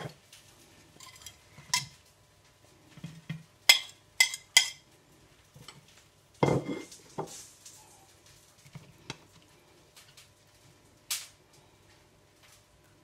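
Scattered clinks and knocks of a fork and ceramic plate as peeled tomatoes, garlic and coriander are handled on it, with a duller thump about six and a half seconds in.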